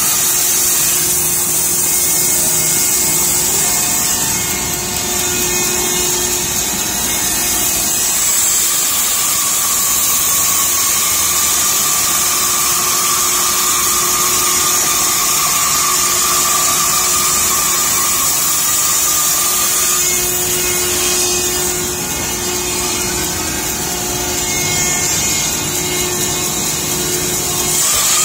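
A CNC curve-cutting saw running steadily, its narrow blade sawing a curve through a stack of thick wood blocks, with a constant high hiss.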